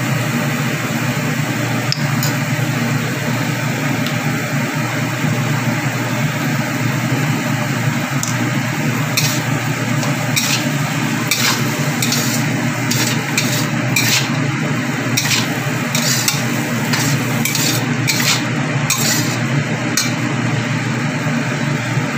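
Long beans and tempeh stir-frying in a stainless steel wok: a steady sizzle over a low hum, with a metal spatula repeatedly scraping and clinking against the wok from about a third of the way in.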